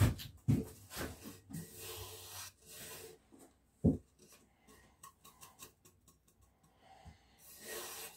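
A cedar block being set down and shifted on a wooden workbench: a few sharp wood-on-wood knocks, the loudest right at the start and near four seconds in, with hands rubbing and sliding over the timber in between.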